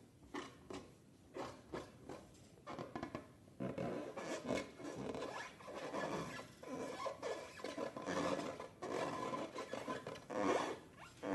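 Hands rubbing and squeezing soft material in short, irregular scrapes, with a denser stretch of continuous rubbing from about four to nine seconds in.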